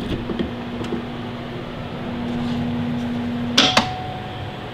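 Victron inverter/charger running with a steady electrical hum, then its transfer switch clicking twice in quick succession about three and a half seconds in. The hum stops at the clicks and a fainter, higher tone carries on: the transfer switch has opened and the unit has dropped its generator input and gone over to inverting.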